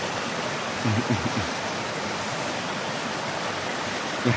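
Small creek waterfall: water spilling over a short drop, a steady rushing splash.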